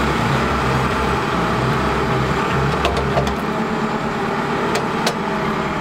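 A vehicle engine running steadily at low speed, with a pulsing low throb that weakens about three and a half seconds in. A few light clicks come in the second half.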